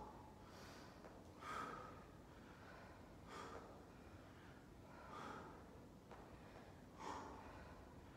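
Faint, paced breathing of a person working through single-arm rows, a breath about every two seconds.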